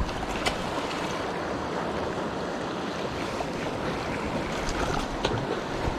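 Steady wind noise on the microphone over waves washing on a rocky shoreline, with two sharp clicks, one about half a second in and one near the end.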